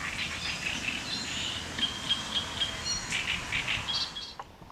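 Small birds chirping and singing in many short notes at varied pitches, over a faint steady background, until the sound cuts off near the end.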